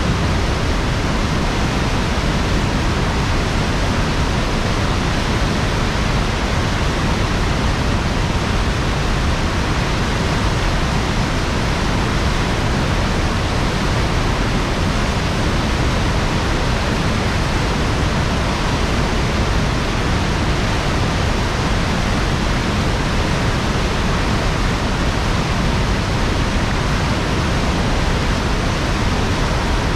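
River water pouring out of a dam's open gate bay and crashing into churning whitewater below: a loud, steady rushing roar that doesn't let up.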